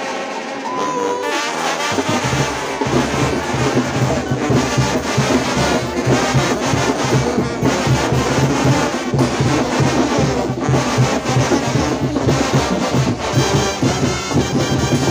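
Massed Oaxacan brass bands (bandas de viento) playing together: trumpets, trombones and clarinets over sousaphones. A pulsing bass line enters about two seconds in.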